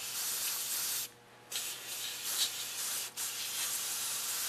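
Aerosol can of carburetor cleaner spraying onto a carburetor float bowl and its small parts: a steady hiss in two long bursts, with a short break about a second in.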